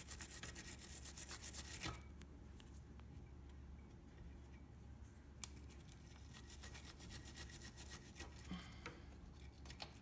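Small wire brush scrubbing corrosion off a corroded, broken spade terminal on the espresso machine's heating element, in quick back-and-forth strokes. The scrubbing is strongest for about the first two seconds, then goes on more faintly in short bursts.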